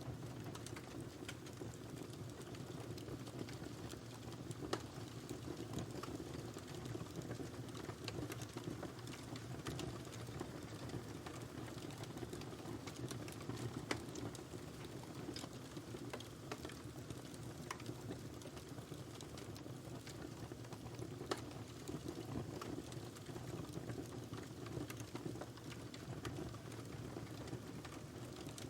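Wood fire burning in a fireplace: a steady low rumble of flames with frequent small irregular crackles and a few louder pops.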